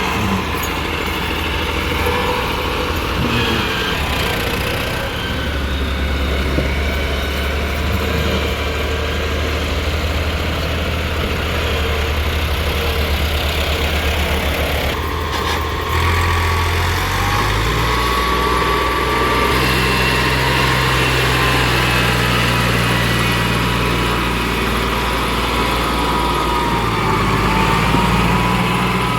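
Diesel engine of a JCB backhoe loader running steadily while digging and loading mud. Its pitch shifts a few times as the machine works, with a thin whine above it.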